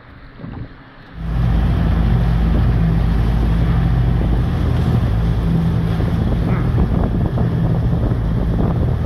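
Tour boat's engine running steadily under way, with wind on the microphone and water rushing past; it cuts in suddenly about a second in.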